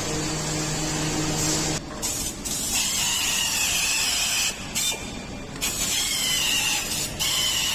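Compressed air hissing in spurts from an air tool, such as a paint spray gun or blow gun, with the trigger pulled and released several times.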